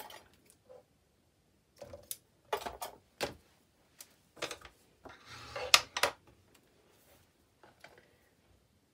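Double-sided red-liner tape being pulled from its roll and pressed onto a strip of card: a handful of short crackling, rustling bursts and small taps, the longest and loudest about five to six seconds in.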